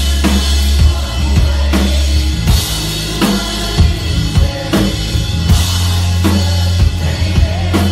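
Live rock band playing, heard from the crowd: a drum kit with a steady kick-and-snare beat over deep held bass notes.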